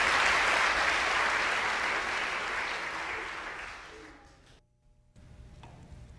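Audience applauding, the clapping fading away over about four seconds. A brief moment of dead silence follows, then a faint low hum.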